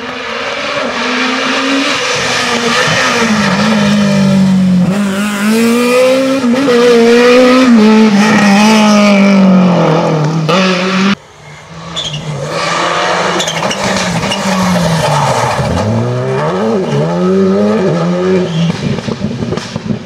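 Rally car engines at full throttle, two cars in turn, each accelerating through a tight bend. The engine pitch climbs and drops with gear changes. The first car's sound cuts off abruptly about eleven seconds in, and the second car's engine, which comes straight after, revs up and down through several shifts.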